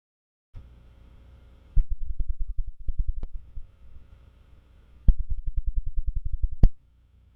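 Synthetic 'loading' sound effect: a faint steady electronic hum with two runs of rapid ticking pulses, about seven a second; the second run ends in a sharp click and the sound cuts off.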